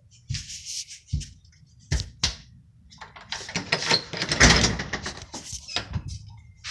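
Phone handling noise: a few sharp clicks and knocks, then about three seconds of rustling and scraping as the phone is moved.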